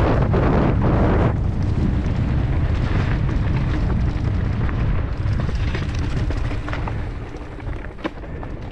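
Wind buffeting the microphone on a mountain bike speeding down a rough trail, with the bike rattling and knocking over the ground. The rush is strongest at the start and eases off, with a sharp knock near the end.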